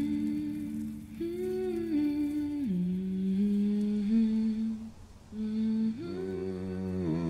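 Slow melody hummed by voice, in long held notes, with a short break about five seconds in and a wavering pitch near the end.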